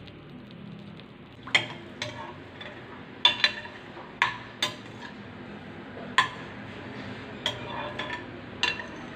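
A spoon stirring a chorizo, potato and carrot mixture in liquid in a glass saucepan, knocking against the glass: about ten sharp, ringing clinks at irregular intervals, starting about a second and a half in.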